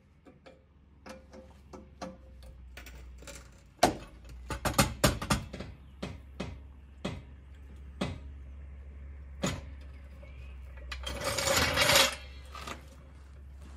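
Steel hydraulic floor jack being worked and lowered under a car: a run of sharp metallic clicks and knocks, busiest about four to six seconds in, then a rough scraping rattle near the end as the jack is dragged out over the asphalt.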